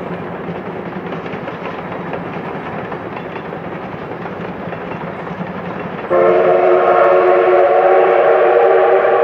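Double-headed steam train of C11 and C10 tank locomotives working along the line, a steady noise, then about six seconds in a locomotive's steam whistle sounds one long, loud blast of several tones together.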